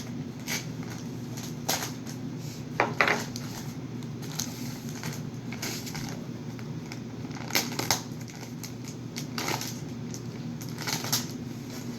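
Shipping package being handled: short crinkling and crackling sounds every second or so, with a cluster about three seconds in and another near eight seconds, over a steady low hum.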